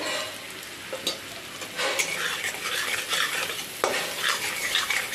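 Metal spatula stirring and scraping a spice paste sizzling in hot oil in a steel karai, with two sharp knocks against the pan, about a second in and near the end.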